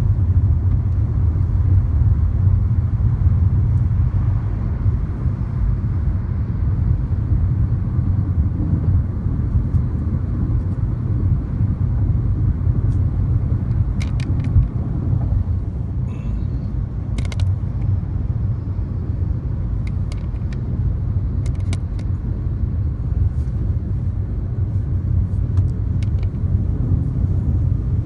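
Fiat 500e electric car driving at speed, heard from inside the cabin: a steady low rumble of tyre and road noise with no engine note. A few sharp clicks come in the middle.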